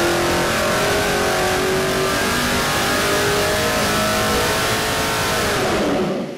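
Ford 347 stroker small-block V8 running at wide-open throttle on an engine dyno, its revs climbing steadily past 6,000 rpm under load. Near the end the pull ends and the revs fall away as the sound drops.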